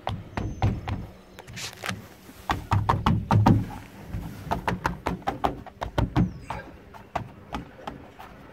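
Irregular clicks and knocks on a diamond-plate metal floor, heaviest and thumping about three seconds in.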